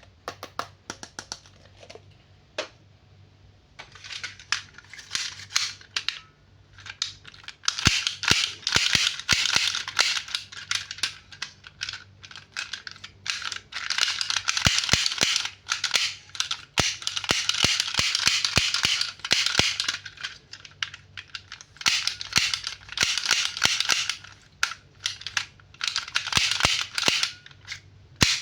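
Toy packaging being handled and opened: spells of crinkling and rustling with many sharp clicks and snaps.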